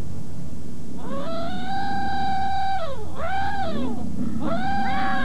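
Dinosaur puppet's creature call effect: long, howling cries that rise, hold and fall in pitch. One long cry is followed by a short one, and another begins near the end, over a steady low hum.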